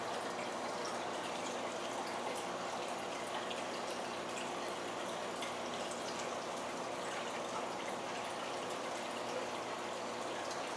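Aquarium water trickling and bubbling steadily, with many small drip-like ticks over it.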